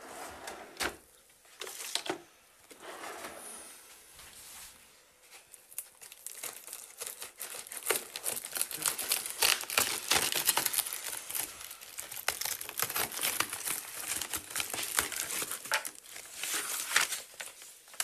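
Packing tape on a cardboard box being cut with scissors and ripped off. A few scattered clicks and rustles come first, then about five seconds in a dense crackling and tearing sets in and runs on. Near the end the cardboard flaps and paper rustle as the box is opened.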